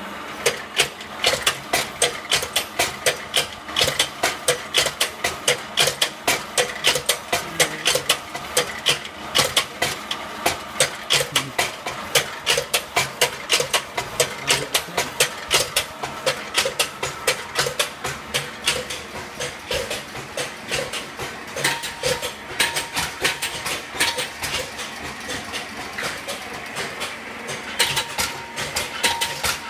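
Rapid, steady knocking: sharp strikes about three a second from work on firework rocket tubes at a factory workbench.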